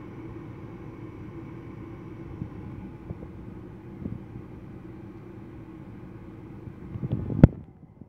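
Goodman gas furnace running its start-up sequence, the draft inducer motor humming steadily while the igniter heats, before the burners light. One sharp click comes near the end.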